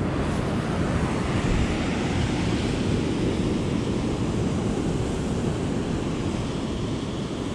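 Ocean surf washing up the beach in a steady rush, with wind on the microphone.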